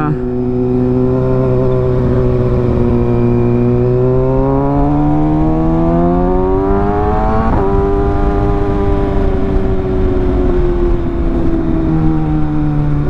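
Kawasaki ZX-6R inline-four engine under way, its pitch rising steadily for about seven seconds, a brief break with a small drop about 7.5 seconds in, then slowly falling as the bike eases off.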